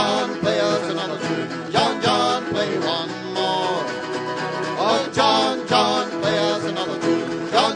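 Live acoustic folk band playing an instrumental passage on plucked strings (mandolin, acoustic guitar and a banjo-like instrument), with a steady strummed rhythm under picked melody notes.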